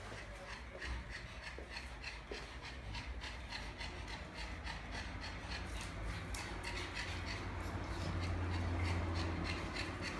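Pugs panting, a quick, regular rasping breath repeated a few times a second. A low rumble swells about eight seconds in.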